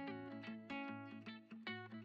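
Background music: plucked guitar playing a quick picked melody with many short notes.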